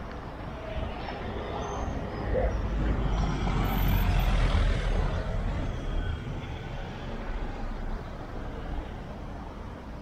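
A heavy motor vehicle passes close by on a street: its engine and tyre noise grow louder from about two seconds in, peak around four to five seconds, then fade away.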